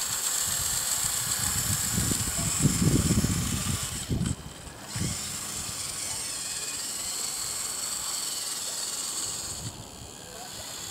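Small electric drive motor and gearbox of a radio-controlled Bruder CAT compact wheel loader whining as it drives back and forth on gravel. The whine stops briefly about four seconds in and again near the end. A rough low rumble is loudest about two to three seconds in.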